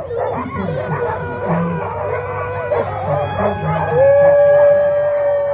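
Sled dogs howling together, several voices overlapping. One long steady howl starts about four seconds in and drops away at the end.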